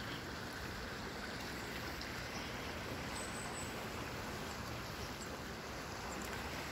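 Steady rushing of river water flowing over a shallow ledge, an even hiss with no breaks.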